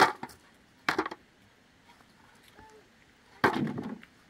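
Stones dropped into a metal bucket, clattering against the metal and each other: one knock at the start, another about a second in, then a longer rattle of several stones a little after three seconds.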